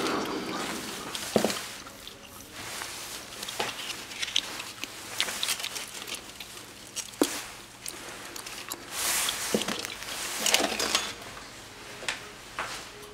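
Metal lathe coasting to a stop over the first couple of seconds, then scattered light clicks, taps and short rustles of handling in the workshop.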